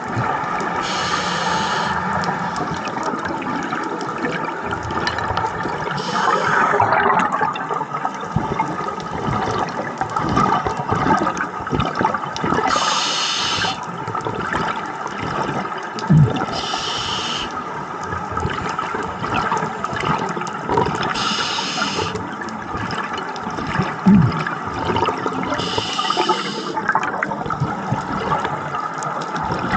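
Scuba diver breathing through a regulator underwater: a short hiss about every four to five seconds, over a steady wash of bubbling and gurgling.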